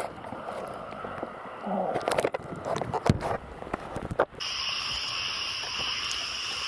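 Scattered rustling and clicking for about four seconds, then a sudden change to a steady high-pitched night chorus of calling animals.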